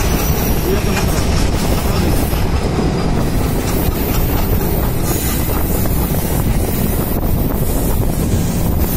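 Passenger train running along the track, heard from an open coach window: a steady, loud rumble of the wheels on the rails, mixed with the rush of air past the carriage.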